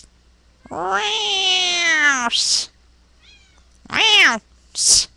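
A cat meowing loudly: one long, drawn-out meow that rises and then falls in pitch, then a shorter meow about four seconds in, each followed by a brief breathy noise, with a few faint chirps between them.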